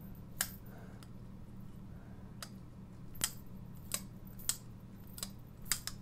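Civivi Elementum button-lock folding knife worked by hand: a string of about eight sharp, irregularly spaced clicks as the blade swings open and shut and the button lock engages and releases.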